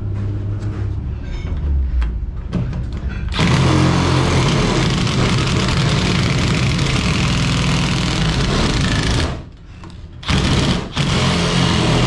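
Cordless drill driving a Malco Turbo Shear attachment, cutting through sheet-metal ductwork. The motor runs steadily under load in one long cut from about three seconds in, stops for about a second near the end, then starts cutting again.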